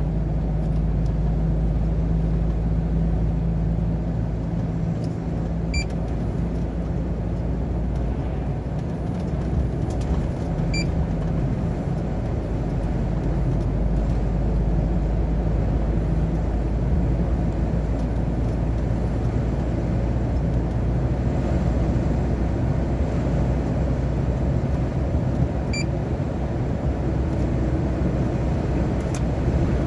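A truck's diesel engine running steadily at cruising speed, heard inside the cab with the drone of road and tyre noise. A short electronic beep sounds three times, about 6, 11 and 26 seconds in.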